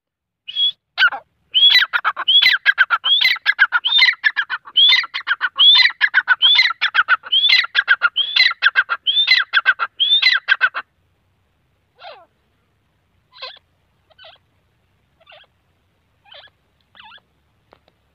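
Grey francolin calling: a loud, fast run of repeated shrill phrases, each with an upward-hooked note, for about ten seconds. After that come a few soft single calls about a second apart.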